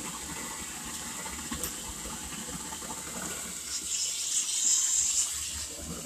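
Shotcrete (sprayed concrete) shooting from a hose nozzle onto a rebar rock shape: a steady rushing hiss of air and wet concrete, louder for a second or so about four seconds in.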